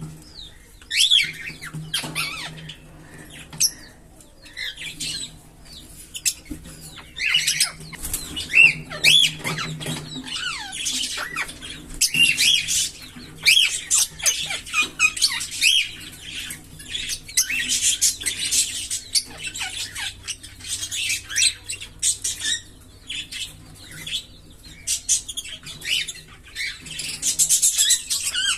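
A pair of green Fischer's lovebirds chirping and chattering continuously, a rapid run of short high-pitched calls and squeaks that rise and fall in pitch.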